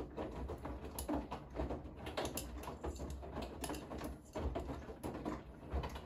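Bosch front-loading washing machine tumbling a load of laundry: irregular soft knocks and patter as clothes drop in the turning drum, over a steady low motor hum.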